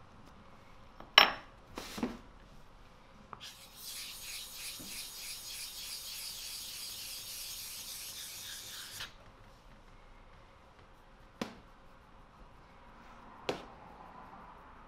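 Two sharp knocks, then a small flat stone rubbed in quick back-and-forth strokes on the wet face of an Ohira natural sharpening stone for about five seconds, raising a slurry. Two lighter knocks come near the end.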